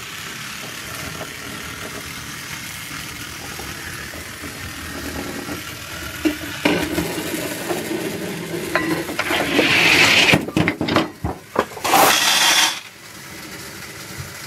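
A homemade chain-reaction machine running: a wooden toy train rolls along wooden track, then a sharp knock, a tin can rolling across a plastic folding table, and loud bursts of clattering and rattling from the falling parts and the candy near the end.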